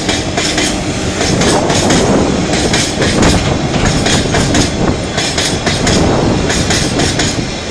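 Empty coal hopper wagons of a freight train rolling past close by over a railway bridge: a loud continuous rumble with irregular clickety-clack of wheels over the rail joints.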